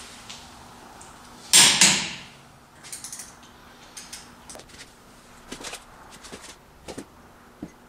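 Hand tools being handled at a car's front wheel: a loud, brief clatter about one and a half seconds in, then scattered light clicks and knocks.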